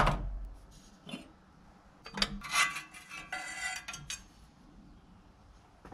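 A sharp snap at the start and a smaller click about a second later. From about two seconds in, an old rusty steel fuel line clinks and rings against metal for about two seconds as it is worked free of the engine.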